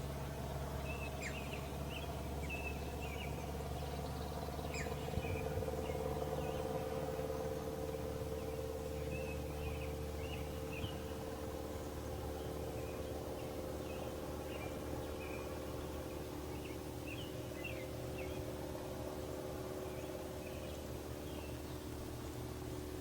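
Small birds chirping in short, scattered calls over a steady low hum with a held droning tone.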